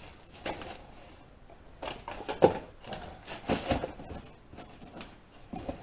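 Small plastic parts and packaging being handled: scattered rustles and light clicks, the sharpest about two and a half seconds in.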